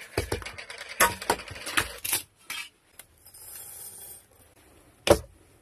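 Dry tartary buckwheat tea grains being tipped from a canister into a glass jar: a string of small rattling clicks against the glass, a soft pouring hiss, and a single sharp knock about five seconds in.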